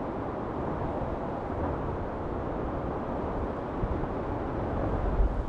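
Strong wind blowing and buffeting the microphone: a steady rushing noise with low rumbling gusts that build near the end.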